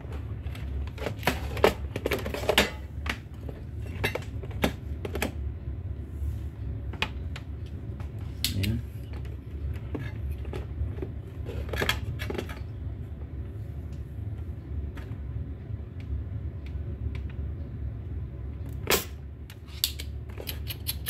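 Irregular sharp clicks and taps of small hand tools working on a circuit board while solder is removed from a component lead, over a steady low hum. The loudest clicks come about 2 seconds in, around 12 seconds and near the end.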